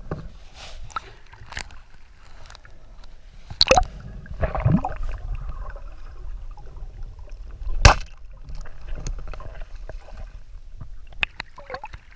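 Underwater recording: a steady low rumble of moving water with a few sharp clicks and knocks from a speargun. The loudest crack, about two-thirds of the way through, fits the speargun firing.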